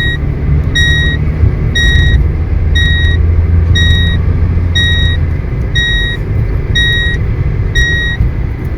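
Car seat belt warning chime: a short high beep repeating about once a second, signalling an unfastened seat belt, over the car's steady low rumble.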